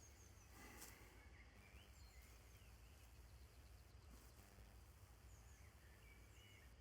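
Faint birdsong: scattered short chirps and whistles from several small birds over a low, steady outdoor rumble.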